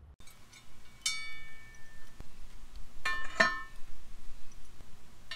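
Metal hand tools clinking against metal: one ringing clink about a second in, then two more in quick succession just past three seconds, each ringing briefly before dying away.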